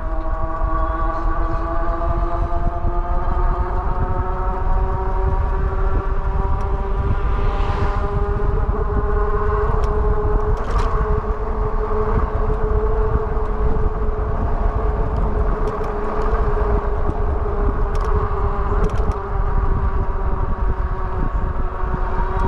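Whine of the Wallke H9 AWD e-bike's hub motors under power, a tone with several overtones that climbs slowly in pitch over the first several seconds as the bike gains speed, then holds steady. A low rumble of wind and tyres runs underneath.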